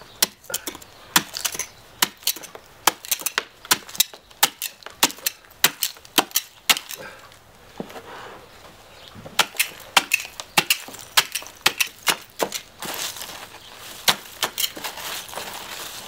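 Knife blade stabbing and chopping into packed snow and ice in a plastic tub: a run of sharp, irregular crunching strikes, roughly two a second, with some scraping near the end.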